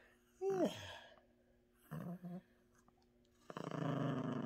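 Yorkshire terrier growling in play with a plush carrot toy in her mouth, a steady rasping growl starting about three and a half seconds in. Before it come a short falling sigh-like sound about half a second in and two brief low sounds.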